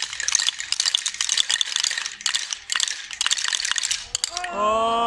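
Many hand-held wooden Easter clappers and ratchets clattering together in a dense, continuous rattle, played in place of church bells during Holy Week. About four seconds in the rattling stops and a group of voices begins a sung chant in unison.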